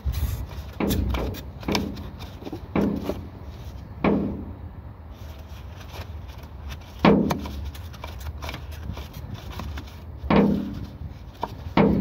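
Irregular knocks and clunks, about seven, each with a brief low ring, as a gloved hand works at the A/C high-pressure switch on the aluminium refrigerant line to unscrew it. A steady low rumble runs underneath.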